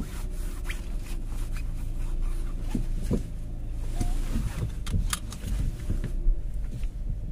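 Steady low rumble heard from inside a parked car's cabin, with a few scattered faint clicks and knocks.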